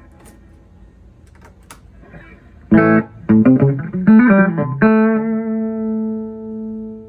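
Electric guitar played through a 1973 Fender Twin Reverb silverface amp, tested at full power after restoration. After a couple of seconds of faint handling clicks, a few loud picked notes and chords come about three seconds in, then a chord is left ringing and slowly fading.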